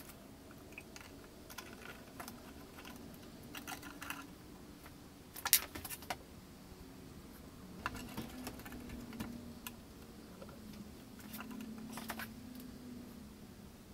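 Scattered light clicks and taps of hands working on a small desktop CNC router's wiring and electronics and on a laptop's keys, with a quick run of louder clicks about five and a half seconds in.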